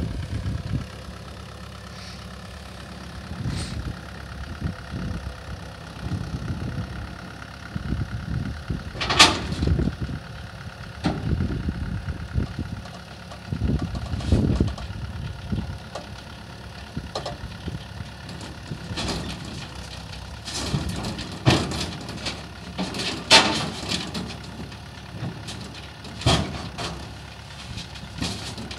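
Yanmar ViO70 mini excavator's diesel engine running as the machine crawls backwards down a tipped truck bed. Irregular sharp knocks and clanks come from its tracks and blade against the truck body, the loudest about nine seconds in and twice more between twenty-one and twenty-four seconds.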